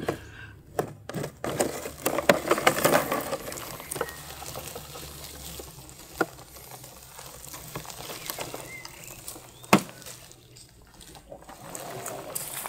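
Dry twigs and grass crackling and rustling as a branch caught in a robot mower is pulled free, densest in the first few seconds. This is followed by scattered light clicks and one sharp knock about three-quarters of the way through.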